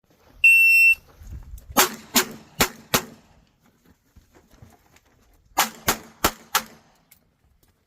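Electronic shot timer beeps once to start the run, then a handgun fires eight shots in two strings of four, each string a quick, even series with about a two-and-a-half-second pause between the strings.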